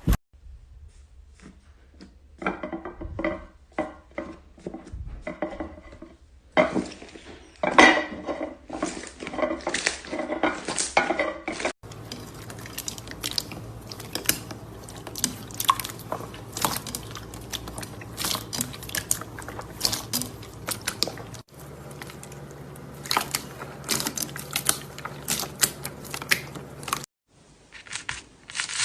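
Slime being squished and stretched by hand, making rapid wet clicks, pops and squelches. It comes as several short clips, each starting and stopping abruptly.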